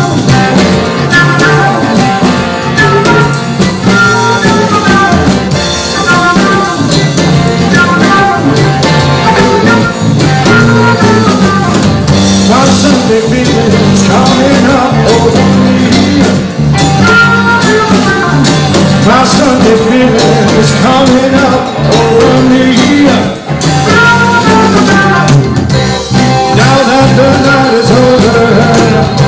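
Live blues-rock band playing: drum kit, bass, red electric guitar and keyboards under a wavering lead line from a flute and harmonica, with some singing.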